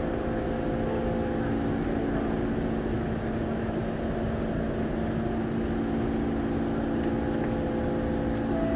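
Steady interior hum of a Singapore MRT train car standing at a station with its doors open, with several steady low tones from the car's onboard equipment.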